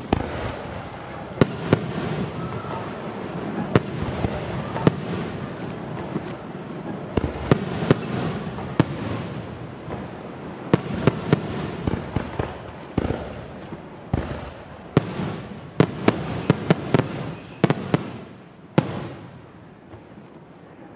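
Aerial firework shells bursting: many sharp bangs in quick succession over a constant crackle. The bangs come thickest from about eleven to nineteen seconds in and die away near the end.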